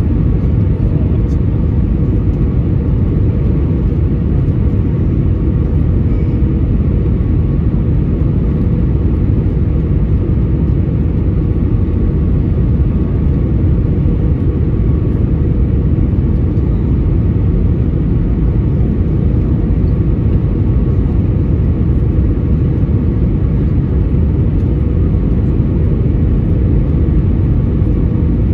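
Steady cabin noise inside an Airbus A320 on approach: a low rumble of the engines and rushing air, with a faint steady hum above it.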